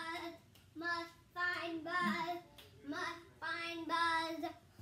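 A young child's high, sing-song voice: several short phrases of held notes with brief gaps between them.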